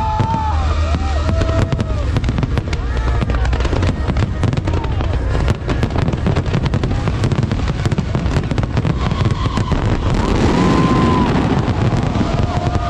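Fireworks bursting in quick succession: dense crackles and bangs over a low rumble, with whistling tones that rise and fall. A denser crackling hiss swells about ten seconds in.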